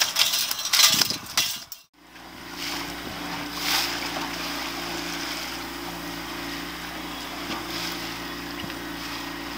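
Splashing and knocking as a netted salmon is lifted aboard in a landing net. After a cut about two seconds in, a boat motor hums steadily at idle under wind and water noise.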